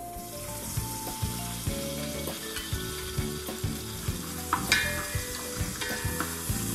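Chopped onions sizzling in olive oil in an aluminium pot, stirred with a wooden spoon that scrapes and knocks against the pot. The oil has just gone onto the browning onion.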